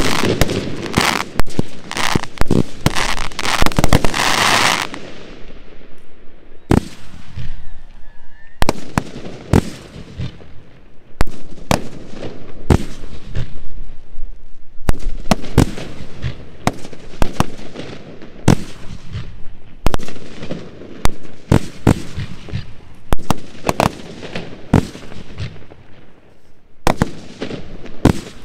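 A fireworks display, with ground-fired multi-shot barrages launching and bursting. A dense, continuous crackling stops about five seconds in. After that comes a string of separate sharp bangs at irregular spacing, roughly one or two a second.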